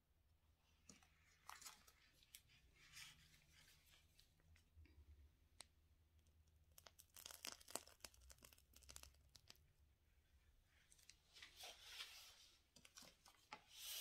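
Faint crinkling and crackling of a plastic piping bag being squeezed as buttercream is pushed out through a metal piping tip, coming in patches with the squeezes.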